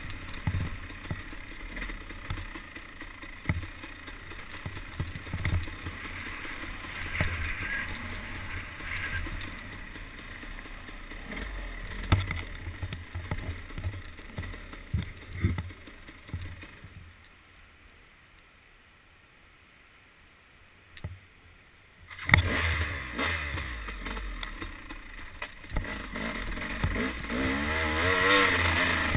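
Dirt bike ridden over a rough forest trail, heard from a helmet camera: wind rumble on the microphone and knocks from bumps over the engine. The sound drops almost to silence for about five seconds past the middle, then comes back loud, with the engine revving up and down near the end.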